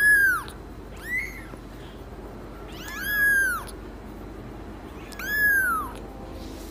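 Small kitten mewing: four high mews, each rising then falling in pitch, spaced one to two seconds apart, the second short and faint.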